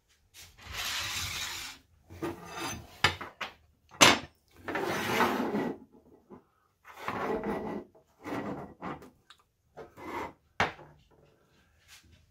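Metal hand tools (diagonal cutters, a die handle, a hex die, a file) and an oil bottle being set down and slid across a tabletop: a run of scraping rubs, each about a second long, with a few sharp clacks, the loudest about four seconds in.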